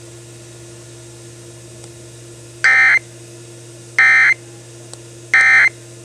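Three short data bursts of an Emergency Alert System end-of-message signal, about a second and a half apart, played through a GE AM/FM portable cassette radio's speaker. A steady low hum of dead air runs between them.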